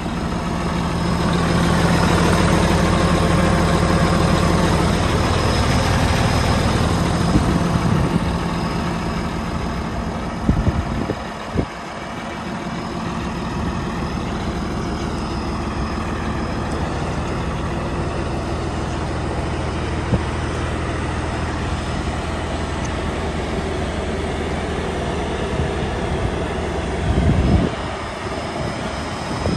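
Diesel engine of a Cat D6T XL crawler dozer idling steadily, with a short louder burst near the end.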